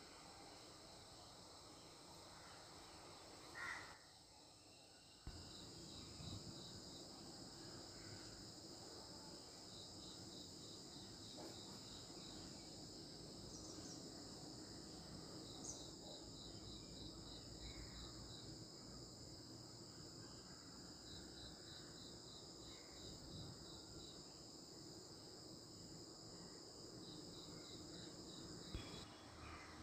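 Faint insect chirping, likely crickets: short trains of rapid pulses repeating every few seconds over a steady high-pitched hiss, starting about five seconds in.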